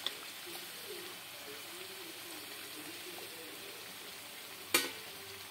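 Kachoris deep-frying in hot oil in a kadhai, a steady soft sizzle. A steel slotted spoon clicks against the pan faintly at the start and sharply once near the end as a fried kachori is lifted out.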